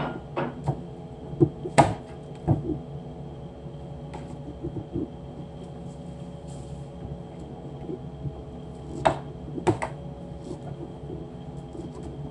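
A kitchen knife slicing through watermelon, its blade knocking sharply against the metal tray a few times (twice near the start, twice more about nine seconds in), with softer cutting ticks between. A steady hum runs underneath.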